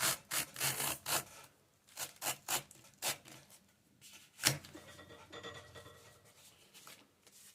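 Leather being pulled through the blade of a Wuta leather splitter: a run of short, irregular rasping scrapes, with one sharper click about four and a half seconds in, then fainter scraping near the end.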